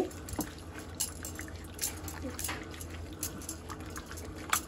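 Raw chicken pieces being hand-mixed in a buttermilk-and-egg marinade, a gloved hand squeezing and turning them, in short irregular wet squelches and splats.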